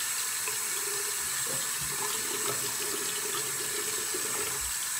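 Bathroom sink tap running steadily into the basin, with water splashed from cupped hands while rinsing cleanser off the face.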